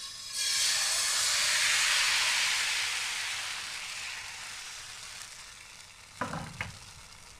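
Thin pancake batter sizzling as it hits a hot pan and is swirled around. The sizzle comes on sharply just after the start, is loudest in the first couple of seconds, and slowly dies down as the batter spreads and sets. A couple of short knocks near the end.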